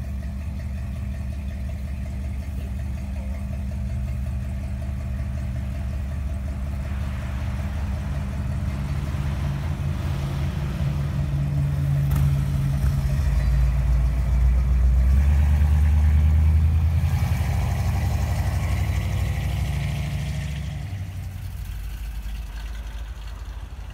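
Classic car engine idling with a deep exhaust rumble. It grows louder through the middle, peaking for a few seconds while a touring motorcycle goes by, then drops off near the end.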